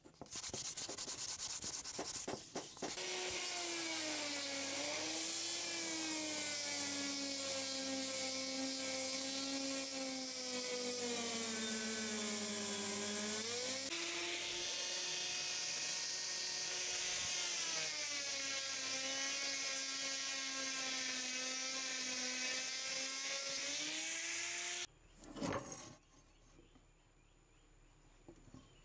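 Sandpaper rubbing on a wooden sickle handle, then an electric grinder running against a rusty sickle blade to strip the rust. The grinder's motor whine is steady, its pitch sagging as it is pressed in and recovering, with a short break about halfway. It cuts off suddenly near the end, followed by a single clink.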